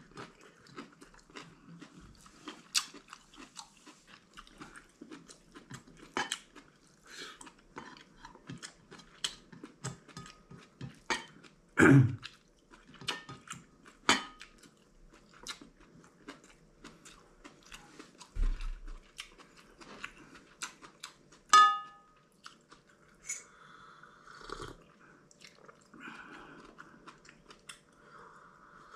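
Close chewing and mouth sounds of a man eating by hand, with small clicks and taps of fingers and food on a plate. A dull knock about twelve seconds in and a ringing clink of crockery about two-thirds through are the loudest sounds.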